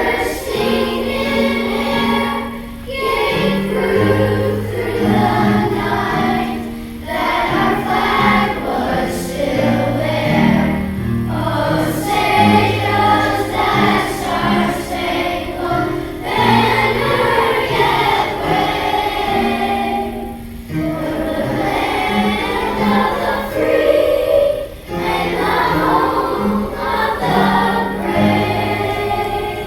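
A choir singing a song in phrases over a steady instrumental accompaniment with held low bass notes, with short pauses between phrases every few seconds.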